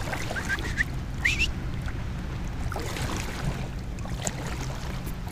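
Lake water lapping against an inflatable kayak's hull, over a steady low rumble of wind on the microphone. A few short rising chirps in the first second and a half.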